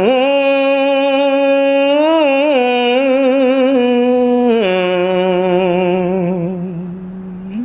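A Buddhist monk's voice chanting Khmer smot, drawing out one long note with a wavering ornament in the middle. About four and a half seconds in it steps down to a lower held note that slowly fades.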